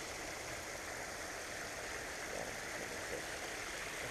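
Small creek's water running steadily.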